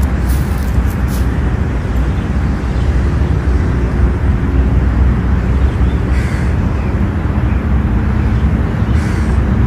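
Loud, steady low rumble of outdoor noise with no clear pitch, and two brief faint hisses about six and nine seconds in.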